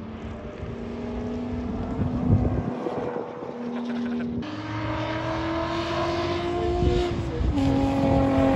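BMW straight-six engine heard from inside the car at speed on a racetrack, pulling hard through several gear changes: the engine note jumps in pitch about halfway through and drops again near the end.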